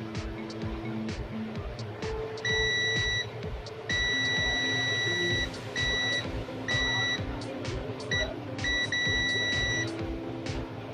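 High electronic beep tone sounding on and off in uneven stretches, some under a second and one about a second and a half long, over background music with a steady beat.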